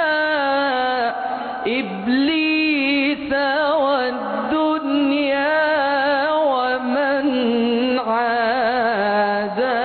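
A man's voice singing an Islamic ibtihal, a devotional supplication in Arabic, stretching a syllable into long melismatic runs of wavering held notes that rise, fall and turn without pausing for words.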